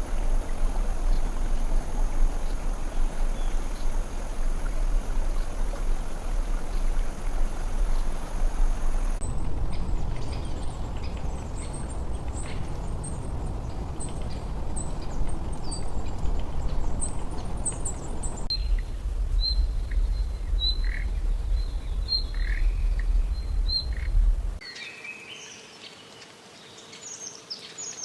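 Birds chirping and calling over a loud low rumbling noise, with the recording changing abruptly a few times. The rumble cuts out about 24 seconds in, leaving clearer, livelier bird calls.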